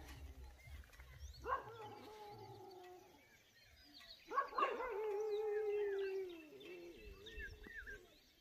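A dog howling: two long calls, the second longer and sliding down in pitch, with small birds chirping near the end.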